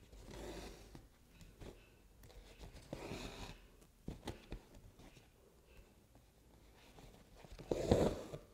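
Embroidery thread being drawn through cloth stretched in an embroidery hoop: soft swishes and rustles with a few light taps, and a louder rustle near the end.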